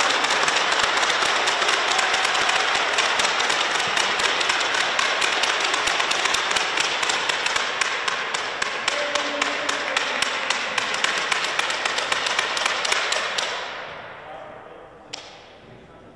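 Spectators applauding after a point: dense clapping with many sharp claps, fading away about 14 seconds in. A single sharp knock near the end.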